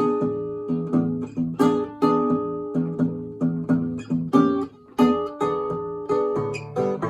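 Stella H928 acoustic guitar played fingerstyle blues: plucked bass notes and treble chords, each ringing out and fading, with a brief gap just before the five-second mark.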